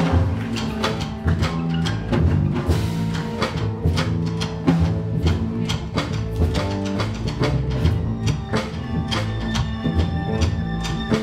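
Live experimental ensemble music: frequent sharp percussive strikes over sustained low pitched notes.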